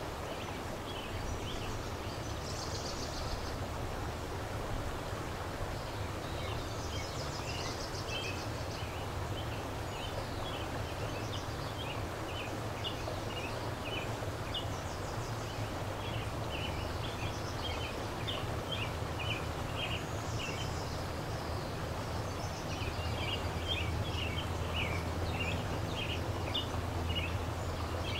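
Steady rush of a fast-flowing river, with songbirds calling in runs of short, quick notes over it through most of the stretch.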